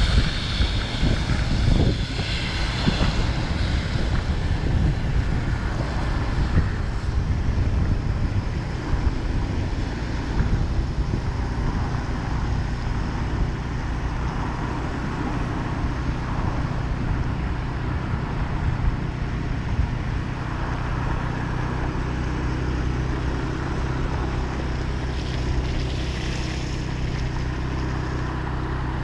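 Engine and road noise of a moving vehicle: a steady low hum under an even rushing noise, with a brief brighter hiss about 26 seconds in.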